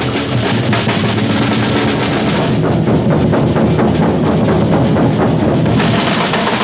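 Batucada drum ensemble playing a driving samba rhythm, deep bass drums under fast snare strokes. The brighter top layer drops away about two and a half seconds in and comes back near the end.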